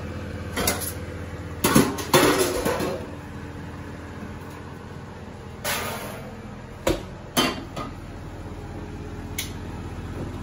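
Kitchen clatter of pans, plates and utensils being handled: a cluster of clunks and scrapes early on, then a few single knocks spread out, over a steady low hum.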